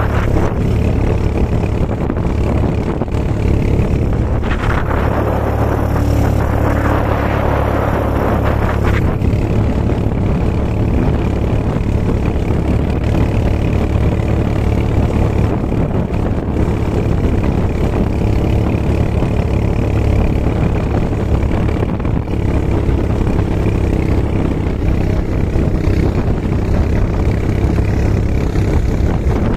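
Quad bike (ATV) engine running under way over sand, a steady low drone, with a few seconds of louder rushing noise about five seconds in.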